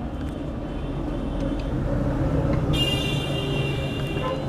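Street traffic rumbling steadily, with a vehicle horn sounding a held, high, multi-tone blast from a little under three seconds in.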